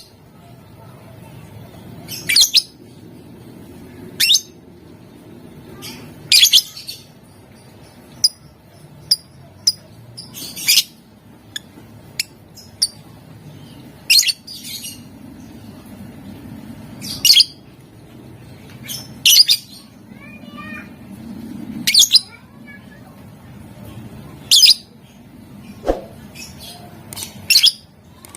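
Lovebird calling in short, shrill, piercing chirps, one every second or two at an uneven pace, some coming in quick pairs, over a faint low background noise.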